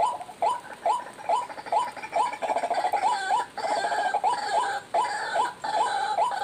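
Rail calls played through a lure speaker: a short hooked call repeated evenly a little over twice a second. For a few seconds in the middle the calls crowd together, with higher overlapping notes joining in.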